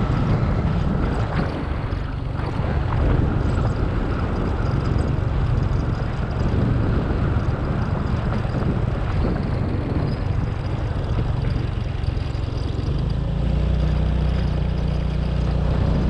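Motorbike engine running while riding, with wind on the microphone. The engine note settles into a steadier hum near the end.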